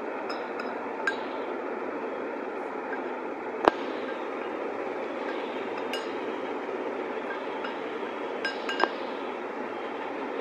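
A steel spoon clinking and tapping against a glass dish and an enamel bowl as spice powders are scraped out: about five short ringing clinks, the loudest about three and a half seconds in, over a steady background hiss.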